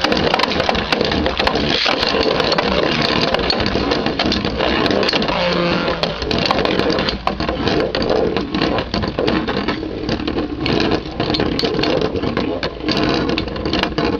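Two Beyblade Metal Fusion spinning tops, Galaxy Pegasus and Meteo L-Drago, spinning and colliding in a battle stadium: a dense, loud rattling grind with many sharp clacks of the metal wheels striking each other and the stadium walls.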